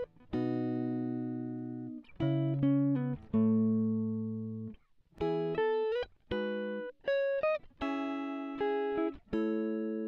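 Music laid over the picture: a slow phrase of clean plucked-string notes and chords, each struck and left to ring out, with short breaks between them.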